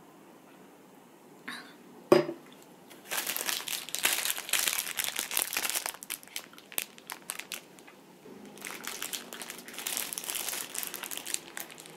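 Plastic wrapper of a packaged chocolate steamed cake crinkling as it is handled and peeled open, in two long stretches. A single sharp knock about two seconds in is the loudest sound.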